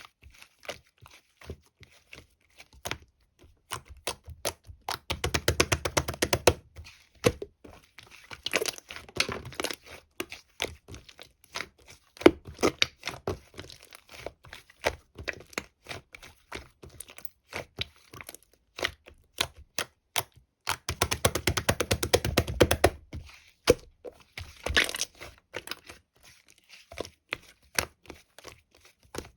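Close-up crackling, crinkling and tapping: many sharp clicks in irregular runs, with two dense flurries about five seconds in and again around twenty-one seconds in.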